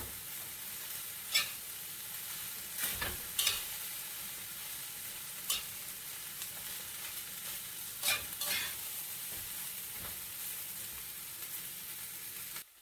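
Fried rice with chicken and mixed vegetables sizzling in a hot pan as it is stirred, with a few sharp scrapes or knocks of the utensil against the pan. The sizzling cuts off abruptly near the end.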